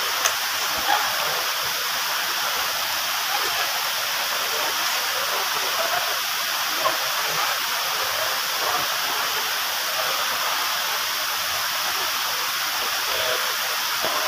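Steady murmur of a crowd: many faint voices blending into an even rushing hiss.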